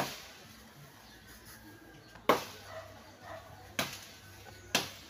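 Chopping strikes into tree branches: four sharp, separate chops about a second or so apart, each with a short ringing tail.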